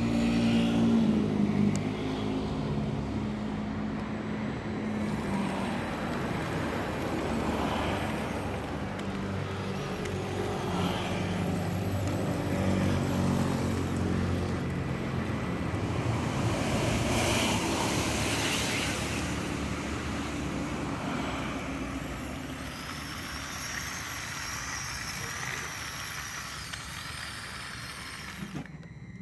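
Small motors driving a 3D-printed model excavator's tracked undercarriage, a steady mechanical running hum whose pitch and level shift as it moves.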